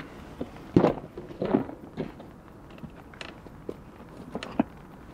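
Rustling and a few knocks and clicks as fishing gear is moved about inside a bivvy tent to make room. The loudest handling noises come about a second in, with lighter clicks after.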